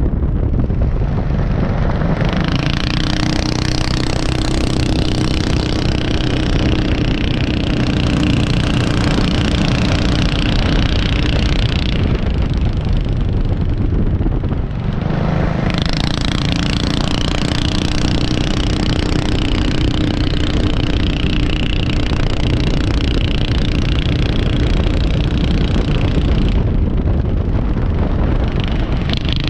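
Small vintage-style open-wheel race car's engine running hard, heard on board with wind and road noise. The engine eases off briefly about halfway through, then picks back up.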